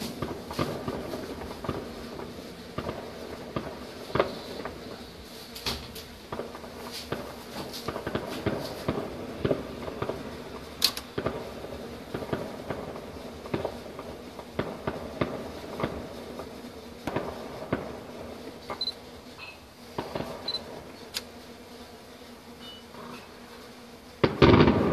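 Distant fireworks display: a continual irregular run of small pops and crackles, with one much louder bang near the end.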